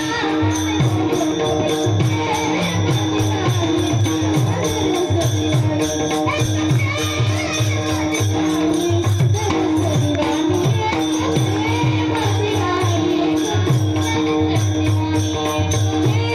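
Devotional folk music with a mridang drum playing a steady rhythm of low strokes, jingling hand percussion, a held drone and a wavering melody over it.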